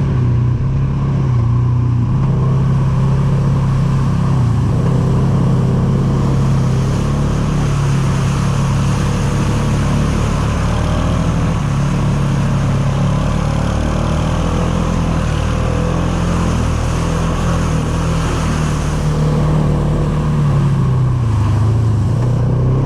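ATV engine running steadily while riding a trail, its pitch dipping and rising a few times.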